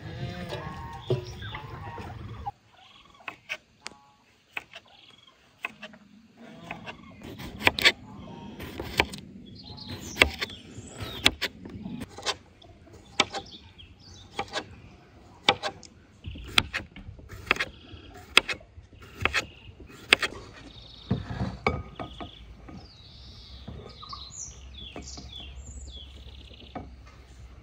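Food preparation: a run of sharp knocks, about one a second, as utensils strike a board or pot. Birds chirp near the end.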